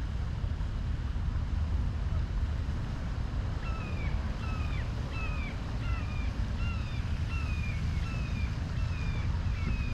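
Wind rumbling on the microphone. From a few seconds in, a bird calls over it in short falling notes, about two a second.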